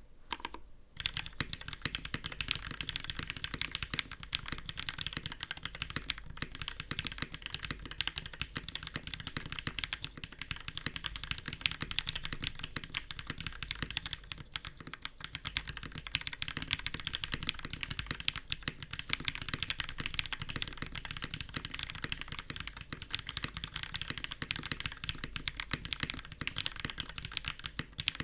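Fast continuous typing on a custom mechanical keyboard with lubed linear Cherry MX Black switches on an aluminum plate and GMK keycaps, a steady stream of keystroke clacks with a brief pause about a second in.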